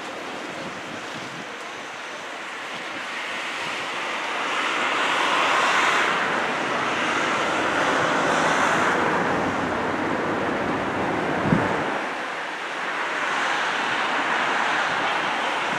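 Sea waves washing against a rocky shore, the rush swelling and fading in slow surges, with a brief low thump about eleven seconds in.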